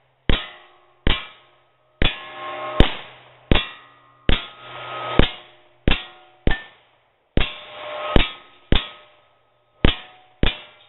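A string of about fourteen 9mm shots from a Glock 19 at a hanging steel silhouette target, each hit a sharp clang with the steel ringing on briefly after it. The shots come roughly half a second to a second apart, with two slightly longer pauses past the middle.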